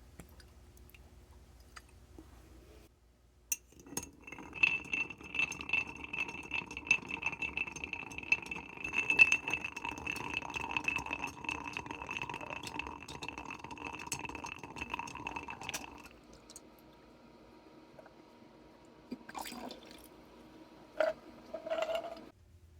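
Ice and glass clinking steadily for about twelve seconds, the glass ringing under many small clicks, as a drink is mixed. A few separate clinks follow near the end.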